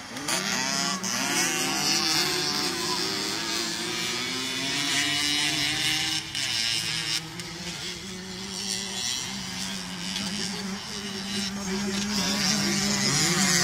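Several small motocross bikes racing on a dirt track, their engines revving in overlapping notes that rise and fall as they accelerate and ease off. A burst of rising revs comes at the start, and one engine note holds steadier and louder near the end.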